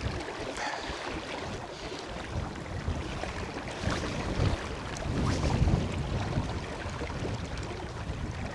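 Strong gusting wind buffeting the microphone over the rush of river water, with low rumbling surges that peak about halfway through.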